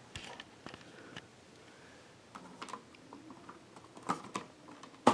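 Scattered light clicks and small knocks of a smoke alarm being handled, with a few louder clicks about four seconds in and a sharp click at the end.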